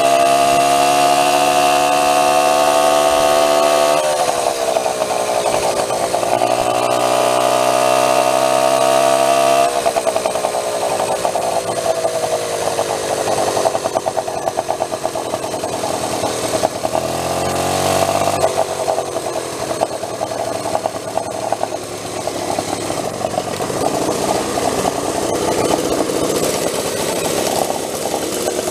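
Small gas engines of a homemade motorized bicycle running under way at high revs. The pitch dips once and recovers, then drops after about ten seconds to a lower, rougher running speed with one brief rev-up.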